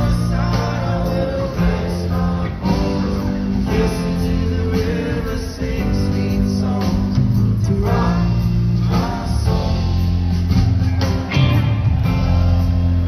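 Live band playing: electric guitars, drums and keyboards with a sung vocal, heard from out in the audience.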